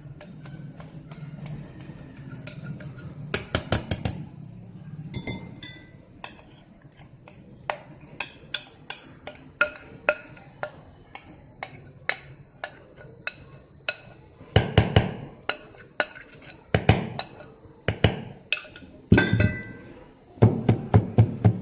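Utensils clicking and knocking against a bowl and cake dish as cake batter is scraped out with a spatula. The clicks come steadily, some ringing briefly, with heavier runs of knocks in the second half.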